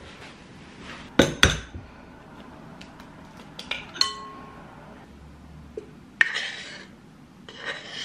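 Kitchen dishware knocking and clinking: two sharp knocks about a second in, then a few lighter clinks around four seconds in, one leaving a short ringing note like glass or ceramic. Later a click is followed by a short rushing sound, and another comes near the end as flour is tipped into a glass mixing bowl.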